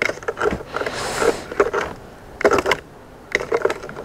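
Wooden spoon stirring a milk mixture in a metal bowl, scraping and knocking irregularly against the bowl's sides.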